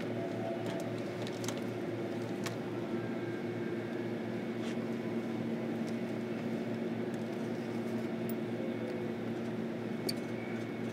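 Interior of a JR Kyushu 305 series electric train's motor car: a steady mechanical hum with several held tones, and a few faint clicks.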